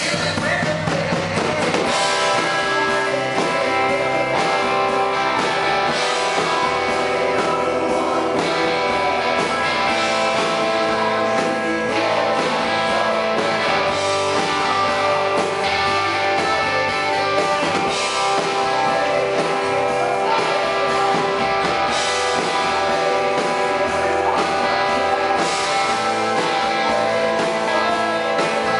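Rock band playing live, guitar-led, at a steady loud level with no breaks.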